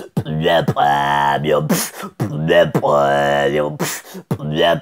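Beatboxing: long held, deep vocal bass notes whose tone sweeps up and down, broken by short hissing snare-like hits.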